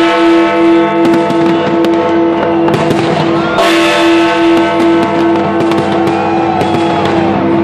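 Fireworks banging and crackling over loud music with sustained notes and a pulsing low tone.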